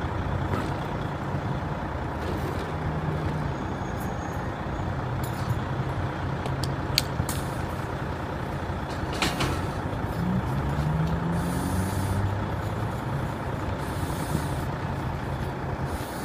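A steady engine-like running sound with a low hum. About ten seconds in, the pitch briefly rises, and there are a few short sharp clicks.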